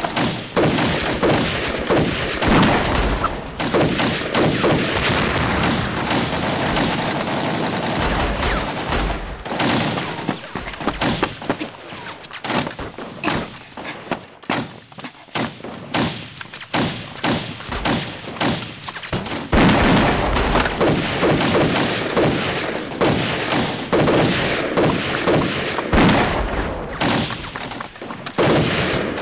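Dramatised gunfire in a night firefight: rapid, overlapping shots that thin to scattered shots in the middle and grow dense again from about two-thirds of the way in.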